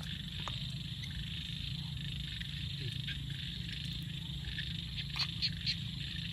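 A steady evening chorus of frogs and insects, with three short high calls in quick succession about five seconds in.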